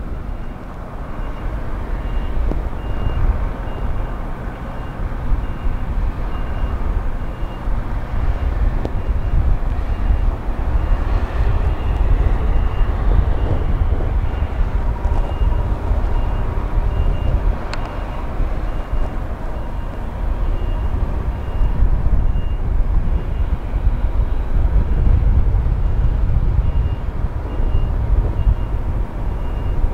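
Heavy diesel machinery, mobile cranes and a tractor unit, running at a steady low rumble while a high electronic warning beeper sounds about twice a second without pause. A single sharp click is heard a little past the middle.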